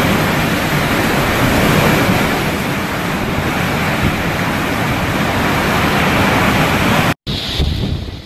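Hurricane-force wind and heavy rain: a loud, steady rush, with wind buffeting the microphone. About seven seconds in it cuts off abruptly, and a quieter stretch of storm wind and rain follows.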